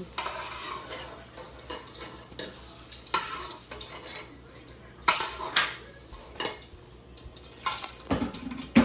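A utensil scraping and clinking against a pot in irregular strokes, with the sharpest knocks about five seconds in and near the end.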